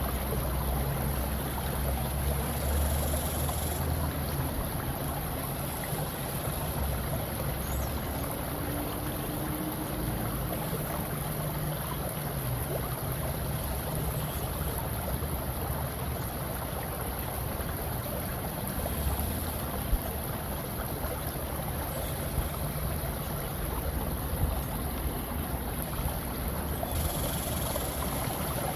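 Steady flowing-water nature ambience, an even rushing wash with a low rumble underneath.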